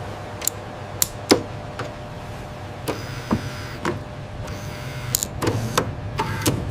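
Small mechanical clicks and ticks, about a dozen spread irregularly, some trailing short falling motor whirs like a small servo moving, over a steady low machine hum.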